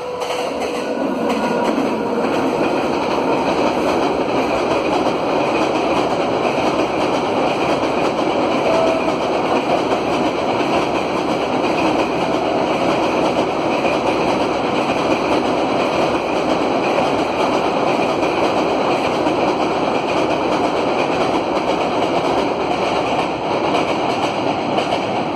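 Indian Railways passenger train running across a steel truss railway bridge: steady wheel-on-rail noise of the coaches, swelling over the first couple of seconds and then holding level.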